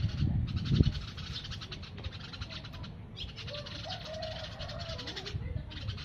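Wild birds calling in a longan tree: a rapid, pulsing chatter in several bursts, with a lower wavering call about halfway through. A couple of low thumps about a second in are the loudest sounds.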